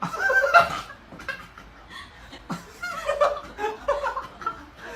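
A person laughing in short bursts, loudest in the first second and again on and off near the middle.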